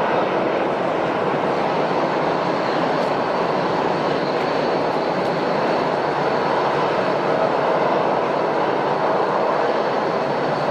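Airliner jet engines running steadily: an even rushing noise with a faint high whine that comes in about one and a half seconds in.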